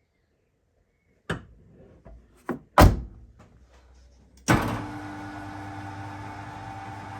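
A car door clicks and thumps shut, then a couple of seconds later the Smart Roadster Coupe's engine starts suddenly and settles into a steady idle.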